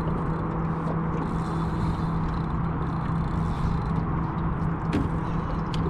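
Boat motor running steadily with a constant low hum, and a couple of light clicks near the end.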